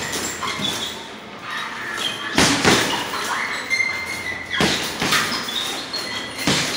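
Dull thuds, four or so, at irregular intervals in a large room.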